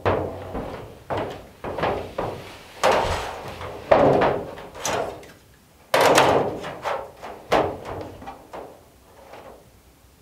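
Large sheet of thin 20 oz copper on the floor being walked and knelt on and handled, giving a run of sudden thumps and bangs that each fade quickly. The loudest come about four and six seconds in, and they die down in the last two seconds.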